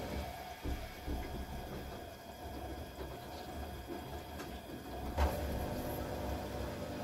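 Front-loading washing machine running with a steady hum as the drum turns the laundry, with one knock about five seconds in.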